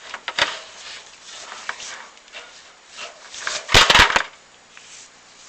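Knocking and scraping inside a chimney flue during a video inspection: scattered light clicks and rubbing, then a loud cluster of four or five knocks about four seconds in.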